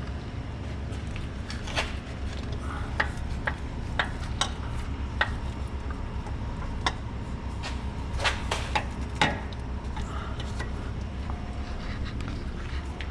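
Light metallic clinks and knocks, about a dozen at irregular intervals, as a new oil filter is fitted, over a steady low hum.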